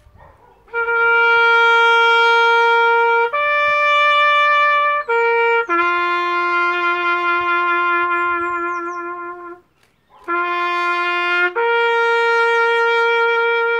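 Solo trumpet playing a slow bugle-style call of long held notes on three pitches, some held three to four seconds, with a short pause about ten seconds in.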